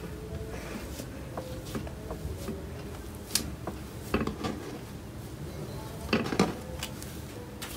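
Cloud slime being kneaded, stretched and pressed by hand, giving soft crackles with sharper pops and clicks: one about three seconds in, a few around four seconds and the loudest cluster about six seconds in.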